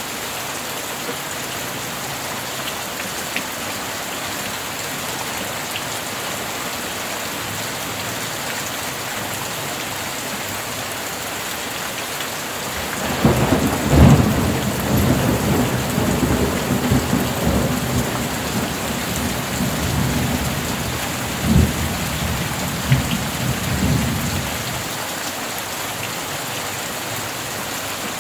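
Steady heavy rainfall, with a peal of thunder that breaks out suddenly about halfway through and rumbles on for about twelve seconds, with a couple of sharper cracks near the end before it dies away under the rain.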